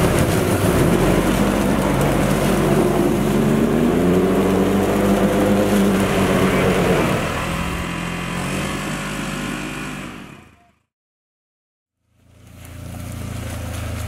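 Polaris Ranger side-by-side engine revving hard with its wheels spinning and flinging mud, the pitch climbing for about seven seconds before easing off. The sound then cuts out completely for over a second and comes back as a quieter steady engine running.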